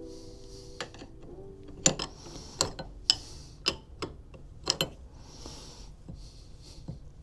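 Sharp metal clicks and knocks, several over a few seconds, from the parts of a Sturmey-Archer three-speed bicycle hub being handled and fitted back together.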